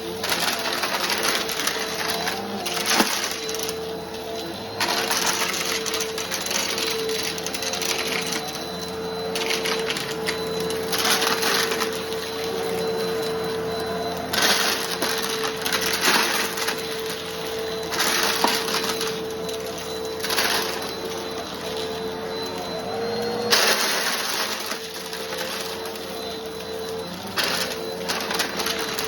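Bissell PowerForce Helix Turbo Rewind Pet upright vacuum running with a steady motor whine, while crunchy debris crackles and rattles up through it in repeated bursts every two to three seconds.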